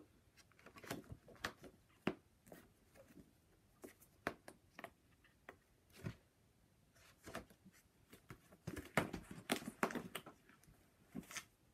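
Softcover paper doll books being handled: irregular soft taps, slaps and paper rustles as the books are lifted, slid and laid down on a stack, busiest near the end.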